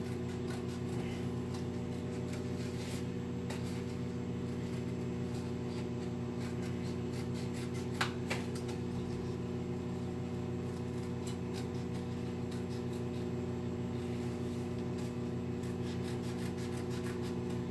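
Microwave oven running with a steady hum while it heats a frozen meal, with scattered light clicks and one sharper tap about eight seconds in.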